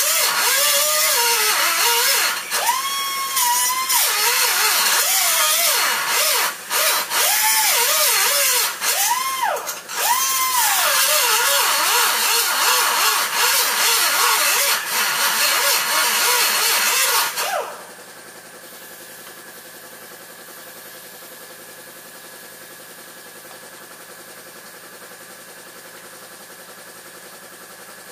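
Power cutting tool with an abrasive wheel, likely an angle grinder, cutting into the rusted steel of a car frame at a weld: a loud grinding rasp whose motor pitch sags and recovers as the wheel bites, cutting off suddenly about two-thirds of the way through. A low steady hum carries on after it stops.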